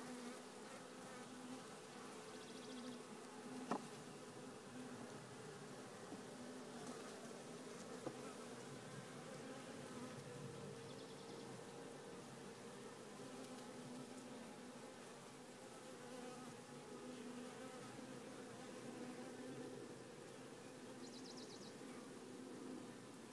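Honey bees of a queenless, drone-laying nucleus colony humming steadily on the open frames. A sharp click comes about four seconds in.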